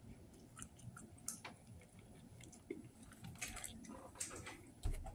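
Close-up chewing of a mouthful of a fish sandwich on white bread, with scattered wet lip-smacking clicks. A dull thump comes near the end.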